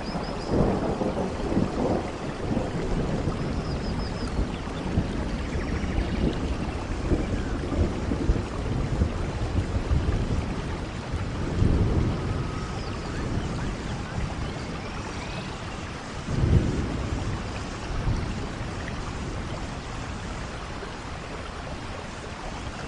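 Rainforest thunderstorm: steady heavy rain with rolling rumbles of thunder, the loudest rumble about two-thirds of the way in.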